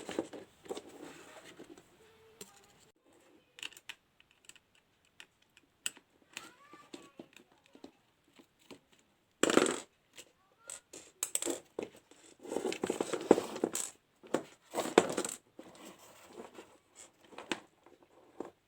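Handling noise from an electric mosquito-killer bat being taken apart by hand: scattered small clicks, taps and rattles of its plastic casing and parts, with a few louder scuffs in the second half.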